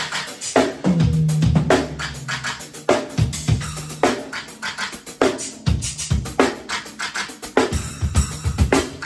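Acoustic drum kit played in a busy groove with fills: rapid hits on kick, snare and toms mixed with cymbal strikes. A tom rings on for a moment after a hit about a second in.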